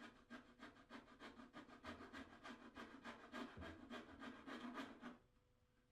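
Coping saw cutting around the mitred profile of a length of timber dado rail: a faint, quick rhythm of about five strokes a second that stops about five seconds in.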